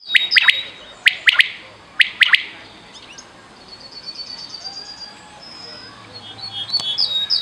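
Quail calling, given as a female quail's mating call used to lure quail: sharp high calls in quick groups of two or three, three times in the first two and a half seconds, then a fast trill of high notes and another cluster of calls near the end.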